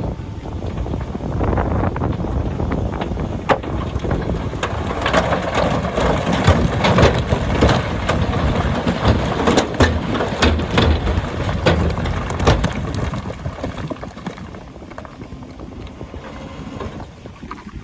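Heavy earthmoving machinery running while large rocks grind and knock together, with many sharp impacts through the middle; it gets quieter in the last few seconds.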